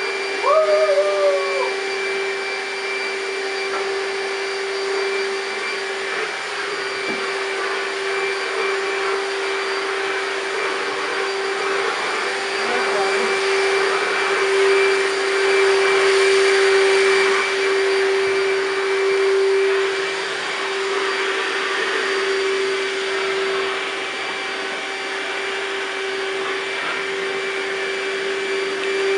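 Vacuum cleaner running steadily with its motor hum and rushing air, swelling a little in the middle. A brief pitched call rises and falls about a second in.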